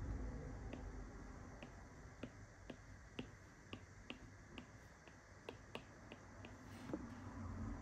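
Apple Pencil tip tapping on the iPad's glass screen while dabbing paint strokes: a string of faint, light clicks at uneven spacing, about two a second.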